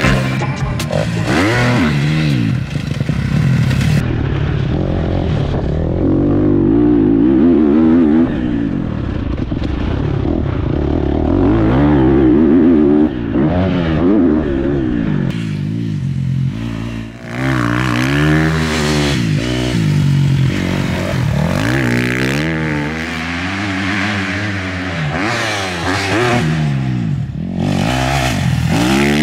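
KTM dirt bike engine revving hard as it is ridden, its pitch climbing and dropping back again and again with the throttle.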